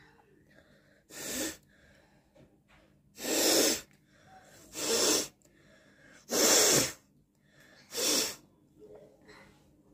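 A person forcing air hard out through the nose five times, each a short noisy blast about a second and a half apart, from a nose congested with a cold.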